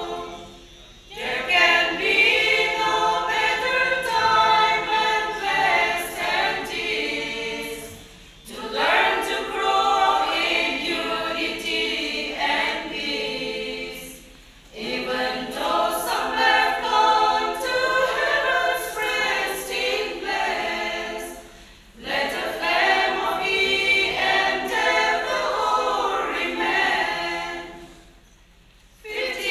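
Women's choir singing in unison, unaccompanied, in long phrases of about six to seven seconds with a short breath between each.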